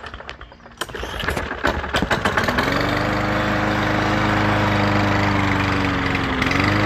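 Small lawn mower engine being pull-started: it sputters and pops for about a second, catches about two seconds in with a rising pitch, and runs steadily, surging briefly near the end. The mower has sat for years and is running on a little fresh tank fuel; the owner takes its carburettor to need cleaning.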